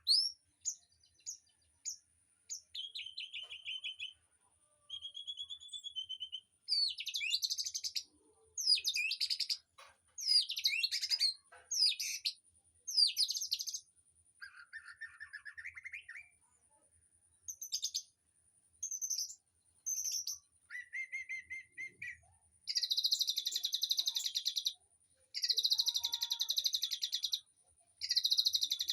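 Songbirds chirping and singing: varied short whistled phrases and trills with gaps between them, then three long rapid trills in the last third.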